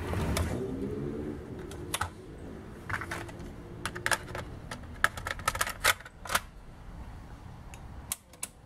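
Polyvox CP 950D cassette deck with its motor spinning after a belt replacement, giving a low hum whose tones slowly drop in pitch over the first few seconds. Over it come a series of sharp plastic clicks and clacks as a cassette is handled and loaded into the tape compartment.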